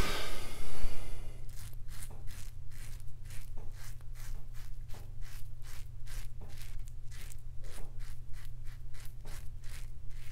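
Parker 63C open-comb safety razor scraping through lathered neck stubble in short, quick strokes, a rasp about three or four times a second. Running tap water fades out in the first second or so.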